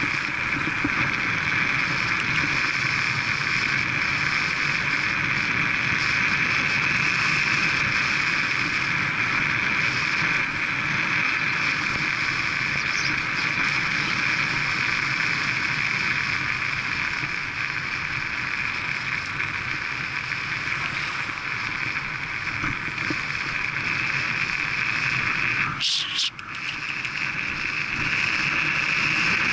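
Steady wind rush and tyre-on-tarmac noise on a bike-mounted action camera, riding at about 24 mph. Near the end it is broken by a short sharp noise and a brief dip.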